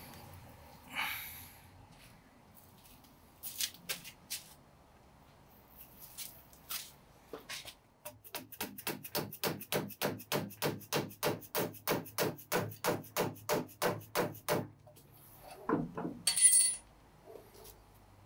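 Dead blow hammer tapping rapidly and evenly on a tool set in a seized steel shaft of a cast-iron jointer infeed table, about four blows a second for some six seconds, to spin the stuck shaft free. Scattered metal clicks come before the tapping, and a sharp ringing metal clink comes near the end.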